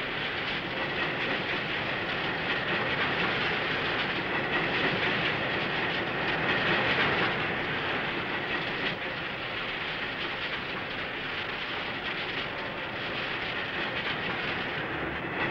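Hydraulic track tamping machine running, its tamping tines vibrating into the ballast under the sleepers: a steady, dense mechanical rattle.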